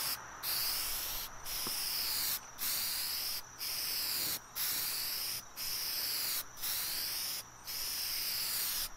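Aerosol spray-paint can hissing in short passes of just under a second each, about one a second, as white paint is sprayed onto a metal panel.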